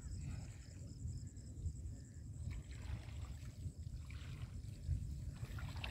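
Wind rumbling on the microphone, with a faint high-pitched pulsing whine in the background.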